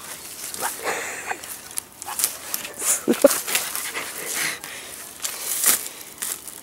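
Dry leaves and twigs crackling and snapping as a person crawls and scrambles through forest undergrowth, in an irregular run of short sharp crackles and rustles.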